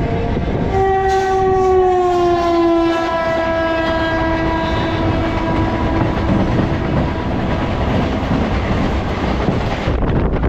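A train horn sounds about a second in, its pitch sliding down a little and then holding for several seconds before fading, over the steady running rumble of an electric suburban (EMU) train on the rails. Wind rushes over the microphone near the end.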